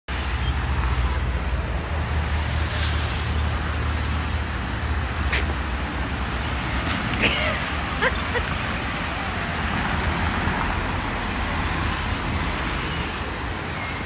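Steady street traffic noise with a low rumble that eases off about halfway through, and a few brief sharp clicks.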